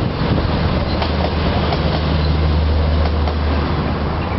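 Passenger train's coaches rolling away over the tracks, with a steady low hum that stops near the end.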